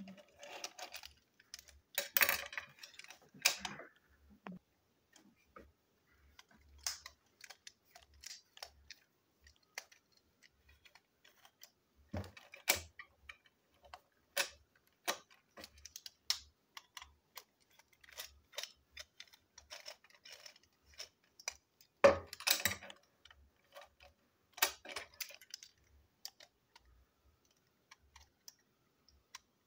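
Small plastic clicks, taps and rattles from a toy train tanker wagon being taken apart by hand with a small screwdriver. The clicks are scattered, with louder handling knocks a couple of seconds in and again about three-quarters of the way through.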